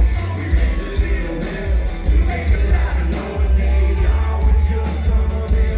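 Live country-rock band playing loudly through a PA: a man singing over electric and acoustic guitars, with heavy bass and a steady beat.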